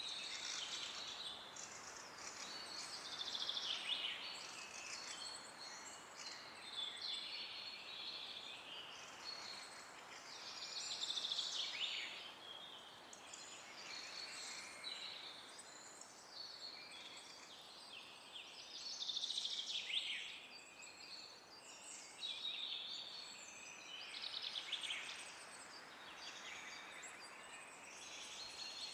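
Many small birds chirping and singing at once in woodland, a continuous busy chorus of short high calls and warbles that swells and eases every few seconds.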